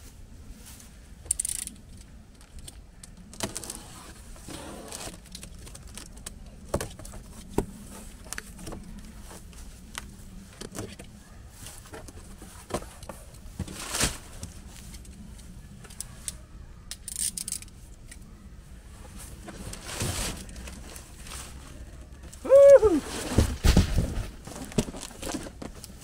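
A cardboard shipping box being opened and unpacked by hand: tape and flaps pulled, paper packing rustled and torn, with scattered handling clicks and knocks. Near the end comes a brief falling squeak and a few heavy thuds as the boxed water heater is pulled out of the carton.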